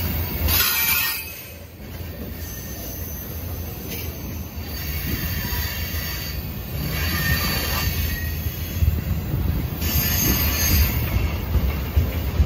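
Freight train of loaded petroleum tank cars rolling past at speed, with a steady rumble of wheels on rail. A high-pitched wheel squeal comes and goes every few seconds, and there are a few sharp knocks in the second half.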